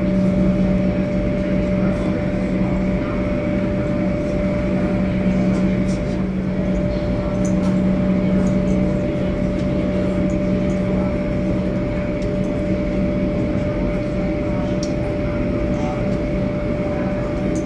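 Cabin noise of a Boeing 737-800 with its CFM56 turbofan engines running: a steady low drone and a thinner steady whine over a constant rush of air.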